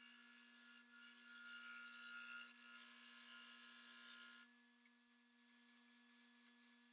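A wood lathe runs with a steady hum while a tool works the spinning cherry wood in a long, hissing pass. Near the end the long pass gives way to a quick run of about ten short strokes.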